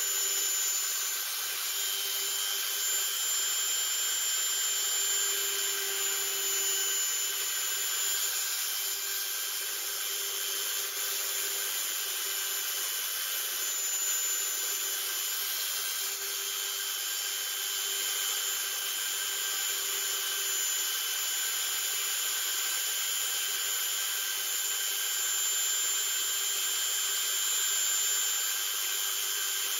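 Dremel-type rotary multi-tool running steadily at high speed, its small carving bit grinding into wood with an even, unchanging whine.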